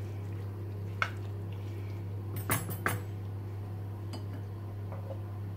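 Wooden spoon knocking and clinking against a stone-coated pan while vegetables are stirred: one knock about a second in and a quick cluster of clinks around two and a half seconds in. A steady low hum runs underneath.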